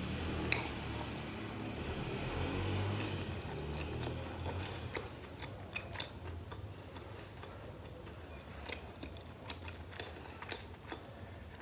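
Close-miked chewing of a mouthful of pizza with the mouth closed: soft, squishy chewing with many small wet mouth clicks, growing quieter toward the end.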